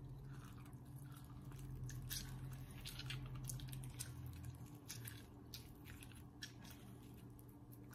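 Citrus fruit squeezed by hand: faint wet squishes and small irregular clicks from the rind and pulp as the juice drips out, over a low steady hum.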